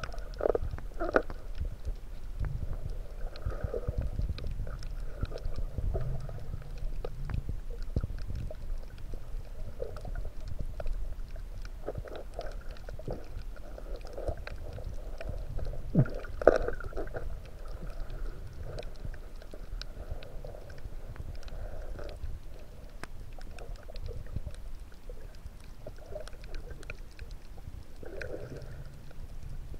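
Muffled underwater sound picked up by a submerged camera: a low rumble of water moving around the housing, with scattered clicks and two sharper knocks about halfway through.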